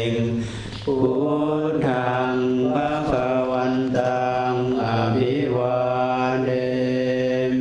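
Buddhist chanting in Pali: a slow, nearly monotone recitation with long held syllables and a short breath pause about half a second in.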